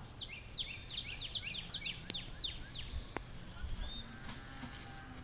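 A songbird singing: a quick run of high, whistled notes that each slide down in pitch, several a second, with a couple of short level whistles among them.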